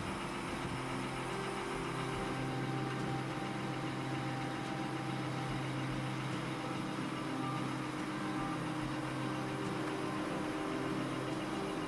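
Case IH STX485 Quadtrac's Cummins QSX15 six-cylinder diesel engine idling steadily.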